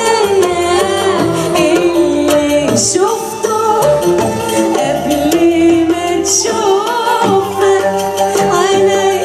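Live band music with a singing voice: a wavering, ornamented melody over a steady bass line.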